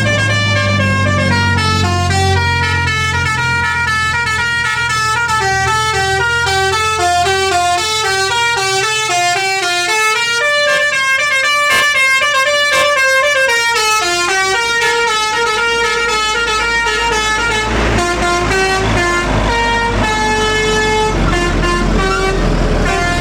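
A bus's telolet horn, a set of musical air-horn trumpets, playing a fast tune of short notes that step up and down in pitch. The bus's engine runs underneath, fading about ten seconds in and coming back louder near the end.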